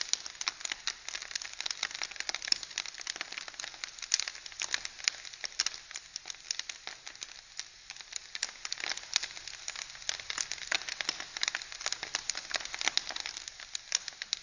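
Seasoned rice crackling in a hot electric skillet, a dense, steady patter of small crackles as it fries.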